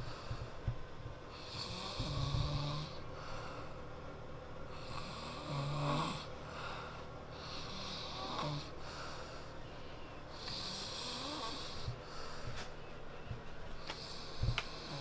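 A man snoring in his sleep, a slow rasping breath that comes round about every three seconds.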